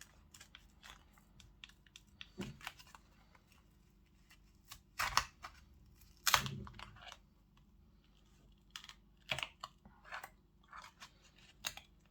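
Prying at the glued back of an OPPO A74 5G phone: scattered small plastic clicks, scrapes and crackles as the adhesive is cut and the panel works loose, with two louder clacks about five and six and a half seconds in.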